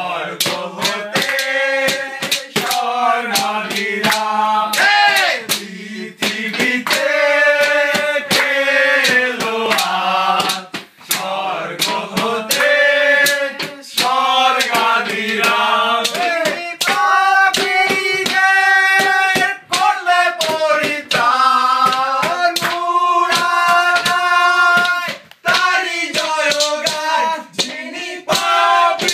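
A group of men singing a Bengali kirtan-style devotional chant together in long held, sliding notes, over steady rhythmic hand clapping.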